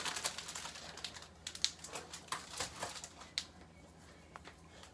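Dry spaghetti sticks clicking and rattling lightly as they are handled, in irregular taps that thin out toward the end.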